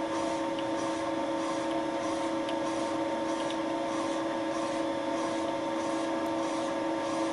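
Thiel Duplex 158 milling machine running steadily, its spindle turning a Wohlhaupter UPA5 facing and boring head that takes light cuts in a plastic bearing seat under the quill's auto feed: a steady machine hum with a faint swish repeating about twice a second.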